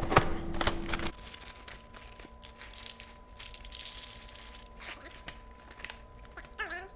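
Crinkling of a plastic cereal bag, with a few sharp clicks in the first second.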